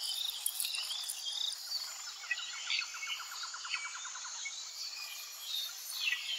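Forest ambience: insects trilling steadily high up, with short bird-like chirps, and a rapid pulsed trill between about two and four and a half seconds in.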